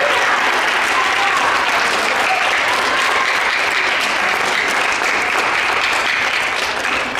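Audience applauding steadily after a winner is announced, the clapping dying away near the end.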